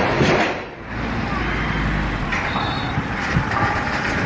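Loud wind-like noise cuts off just under a second in, followed by a heavy vehicle's engine running with a steady low rumble.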